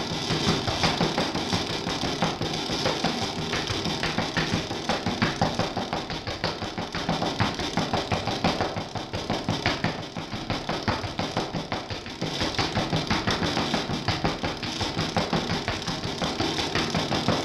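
Throbbing electronic noise music: a dense, harsh wash of noise pulsing fast and evenly, steady throughout.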